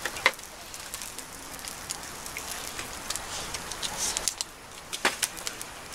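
Wood fire crackling in a campfire grill: a steady hiss full of small pops and snaps, with a couple of sharper clicks about a third of a second in and again about five seconds in.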